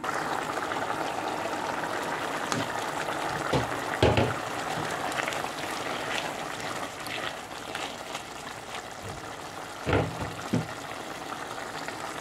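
A pot of potato and pepper stew simmering and bubbling in its sauce. A spatula knocks against the pot a few times, twice about four seconds in and twice about ten seconds in.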